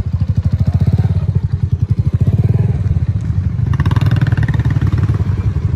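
Motorcycle engine running with a steady, rapid low pulse.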